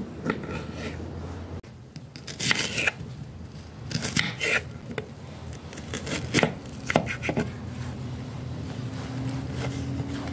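Small kitchen knife slicing through an onion against a hard plate, in a few short bursts of crisp cuts, over a steady low hum.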